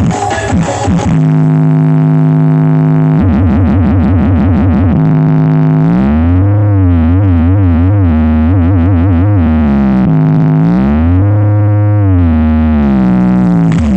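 Large Blizzard Audio sound system playing a loud synthesizer bass tone. The tone holds steady, then warbles quickly a few seconds in, and glides up and down in pitch several times in the second half.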